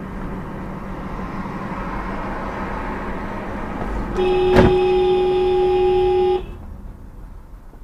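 Car driving with steady road and tyre noise, then a car horn sounds one steady honk held for about two seconds as a box truck cuts in ahead.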